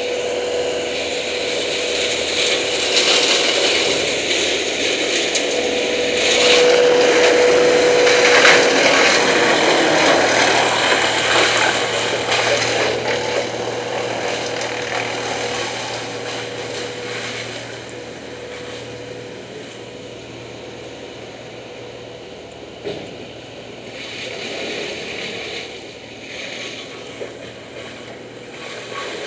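Brush chipper running with a steady hum. For the first several seconds it makes loud crunching and grinding as branches go through it, then the sound gradually grows fainter, with a couple of sharp clicks near the end.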